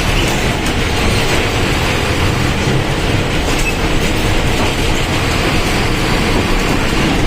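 Mercedes-Benz OF1722M Euro III bus running under way: a steady engine and driving noise with faint rattling ticks.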